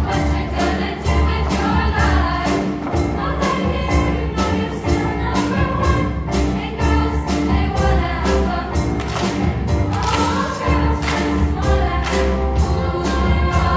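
Show choir singing in full voice over accompaniment with a strong bass and a steady drum beat.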